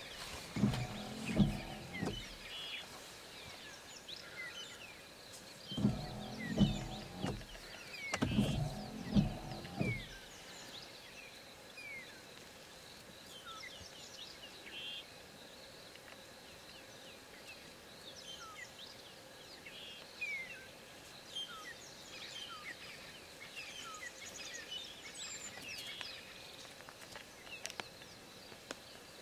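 Small birds chirping and calling on and off throughout. Three short bursts of a louder, low pulsing sound in the first ten seconds.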